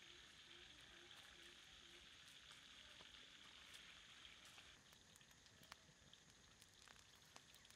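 Faint sizzling of river mussels grilling in their half-shells on a wire rack over a wood fire, with scattered small pops and crackles from the fire, more of them in the second half.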